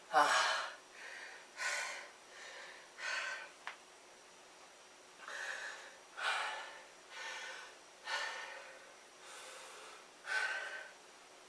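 A man breathing hard from push-up exertion: rough, heavy breaths about once a second, with a short lull about four seconds in. A single light click comes just before the lull.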